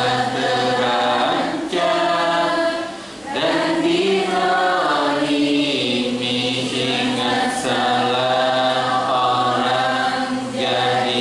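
A man singing a devotional Islamic song (syiir) from a songbook into a microphone, in long drawn-out melodic lines, with a short breath about three seconds in.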